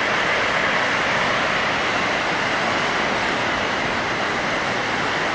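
Sea surf breaking and washing up the shore: a steady, even rush of waves.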